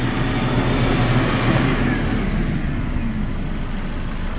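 A vacuum cleaner running off a car's inverter is switched off. Its motor winds down with a steeply falling whine as the rushing air dies away, leaving the Honda Civic's engine idling with a low, steady rumble.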